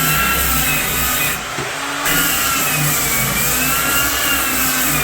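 Variable-speed electric sander running as it strips the old coating off a fiberglass tub insert. Its motor whine cuts out briefly about a second and a half in, then comes back, its pitch sagging and recovering as it is pressed into the surface.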